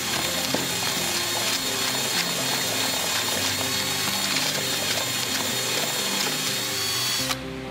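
Cordless drill with a paddle mixer running steadily, churning paving primer slurry in a plastic bucket. It stops suddenly near the end.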